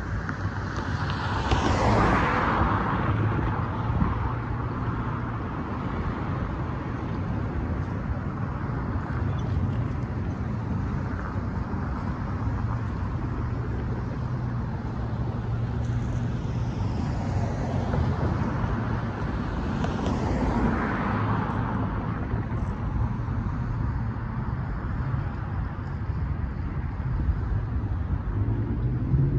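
Road traffic driving over a railroad crossing: a steady rumble of car tyres and engines, with two louder cars passing close by, one about two seconds in and one about twenty seconds in.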